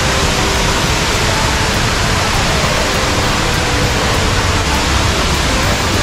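Steady, loud rush of a large indoor waterfall, the Rain Vortex at Jewel Changi Airport, pouring down its drop.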